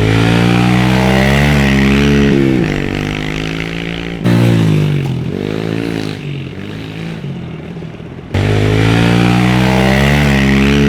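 Kawasaki KLX110's small single-cylinder four-stroke engine revving up and down repeatedly as the dirt bike is ridden, its pitch rising and falling. The level jumps suddenly about four seconds in and again about eight seconds in.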